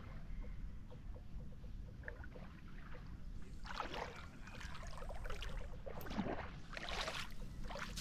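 Small waves lapping and washing at the water's edge on a sandy, pebbly shore, with a few louder splashy surges in the second half, over a steady low rumble of wind on the microphone.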